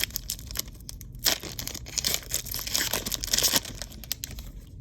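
A Panini trading card pack's thin wrapper being torn open and crinkled by hand: a crackly rustle with small snaps, loudest from about one to three and a half seconds in.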